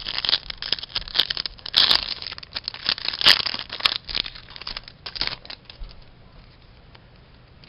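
A hockey card pack's wrapper crinkling and tearing as it is opened by hand, with sharp crackles, dying away about six seconds in.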